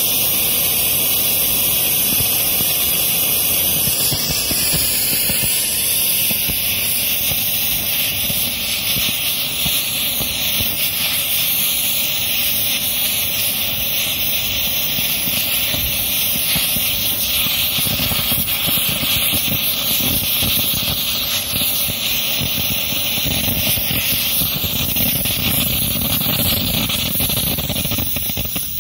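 Small oxygen-fed PMMA (acrylic) hybrid rocket motor with a converging-diverging de Laval nozzle, firing steadily: a continuous loud hissing rush of the exhaust jet.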